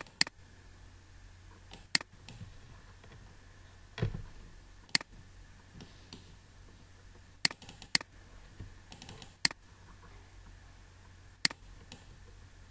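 Computer mouse clicking: single sharp clicks every second or two at uneven intervals, a few in quick pairs, over a faint steady low hum.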